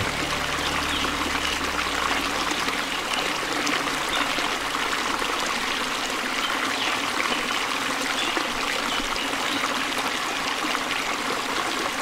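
Waterfall and shallow river rapids rushing steadily over rocks.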